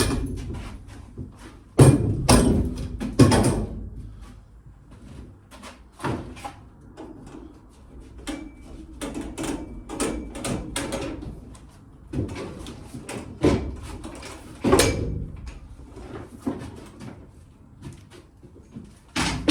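Irregular knocks and clunks from hand work on timber battens inside a narrowboat, as clamps are taken off and wood is handled. The loudest bangs come about two, three and fifteen seconds in.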